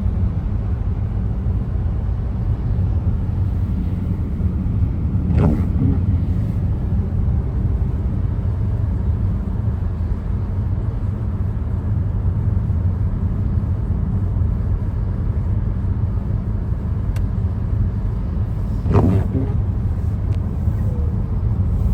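Steady low road rumble of a car driving on a snowy highway, heard from inside the cabin. Two brief whooshes stand out, about five seconds in and near the end.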